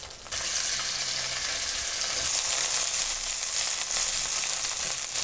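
Chicken wings browning in hot oil in a pan, sizzling with a steady hiss that starts suddenly just after the start and cuts off near the end.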